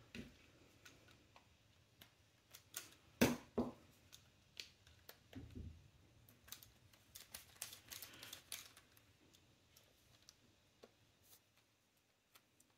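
Scattered light clicks and taps of a screwdriver and handling on an airsoft rifle's lower receiver as the trigger pin is worked at, with a louder double knock about three seconds in.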